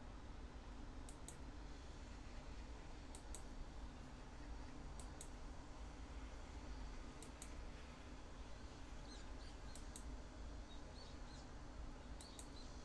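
Faint computer mouse clicks: a quick press-and-release pair about every two seconds, over a low steady hum.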